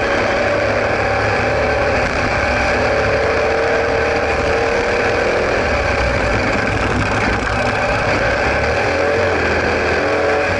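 Sidecar motorcycle engine running under load, its pitch rising and falling as the outfit is ridden, with a steady rush of wind and road noise over it.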